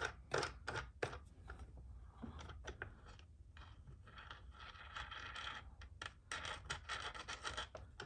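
Small metal wing nuts being twisted off the threaded bolts of a flower press by hand: faint scraping of metal threads and fingers on the board, with scattered small clicks and a longer stretch of scraping in the middle.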